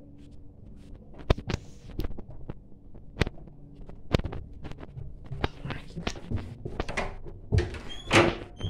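Irregular knocks, taps and rustling from a handheld phone being moved about, with footsteps on a laminate floor. The loudest, longer rustle comes near the end.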